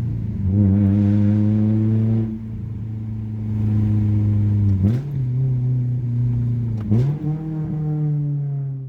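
Honda S2000's four-cylinder engine running through a Buddy Club Spec II single-exit aftermarket exhaust under way, a loud steady exhaust note that eases slowly in pitch, with two quick jumps in revs about five and seven seconds in.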